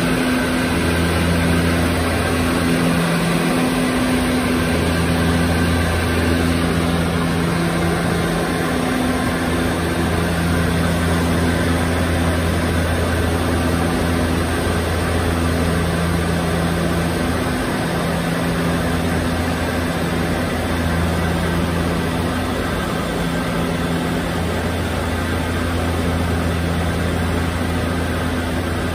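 The two Pratt & Whitney PT6A turboprop engines and propellers of a DHC-6 Twin Otter, heard from inside the cockpit in cruise on approach: a loud, steady drone with a low hum that swells and fades every few seconds.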